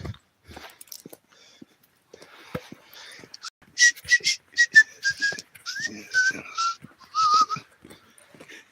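A person whistling a short tune: a run of short notes that step down in pitch and end on a wavering note, with audible breath.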